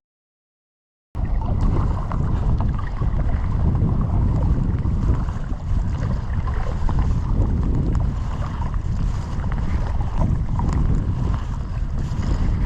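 Wind buffeting the microphone over the sound of water around a kayak on a lake, starting abruptly about a second in after a moment of total silence.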